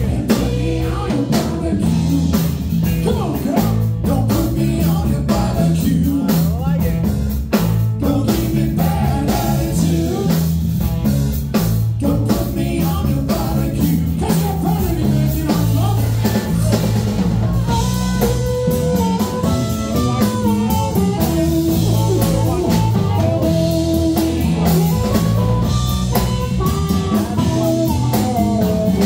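Live blues band: two electric guitars and a drum kit playing, with a man singing and, near the end, harmonica played into the vocal microphone.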